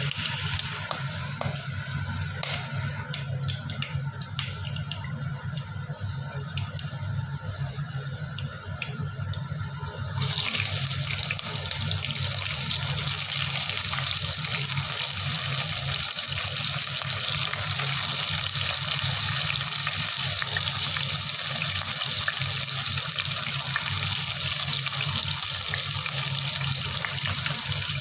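Water running from a kitchen tap with small splashes, suddenly becoming louder and hissier about ten seconds in and then running steadily.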